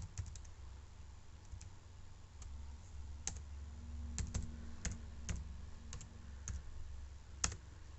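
Computer keyboard keys pressed one at a time, a dozen or so irregular clicks, as a password is typed in, over a low steady hum.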